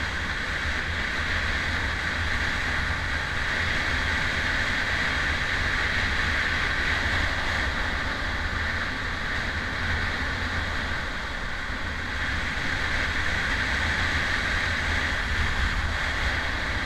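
Steady wind rush and road noise from a moving motorcycle, picked up by a camera mounted on the bike, with a low rumble underneath.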